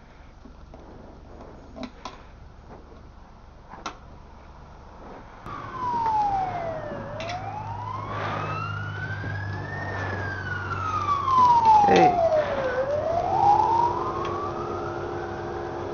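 Emergency-vehicle siren wailing, starting about five seconds in, its pitch sweeping down and up twice. A few sharp clicks come before it, and a loud knock about twelve seconds in.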